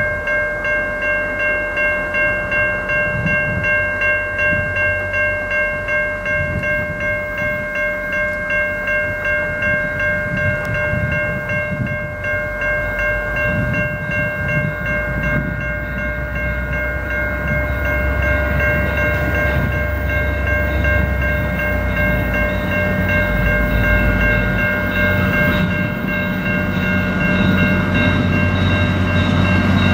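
Level-crossing warning bell ringing steadily, about two strikes a second, as an approaching diesel passenger train's low locomotive rumble grows louder toward the end.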